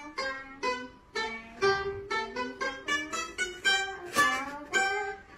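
A pipa (Chinese lute) played as a melody of single plucked notes, about four a second, several of them bending in pitch.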